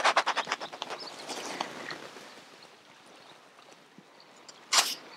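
Clothing rubbing on a body-worn microphone as the torso twists: a quick run of scratchy clicks in the first second and one short loud swish near the end, over faint lapping lake water.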